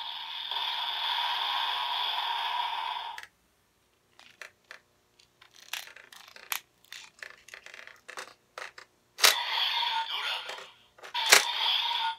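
DX Evol Driver toy belt: its electronic standby sound plays, then cuts off abruptly about three seconds in as the bottles are pulled out. Scattered plastic clicks and rattles of the bottles being handled and swapped follow. About nine seconds in, a loud click as a bottle snaps into place sets the belt's electronic sound going again, with another sharp click near the end.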